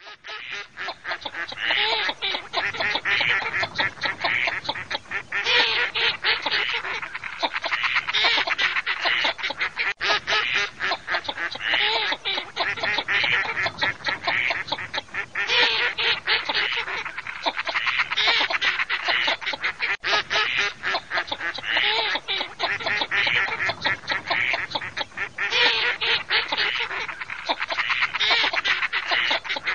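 Mallards and another duck species quacking and calling over each other in a dense flock chorus. It is a recording of roughly ten seconds played over and over in a loop.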